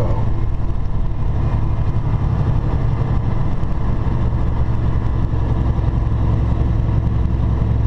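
Steady low drone of a semi truck's engine and road noise heard inside the cab while cruising at highway speed.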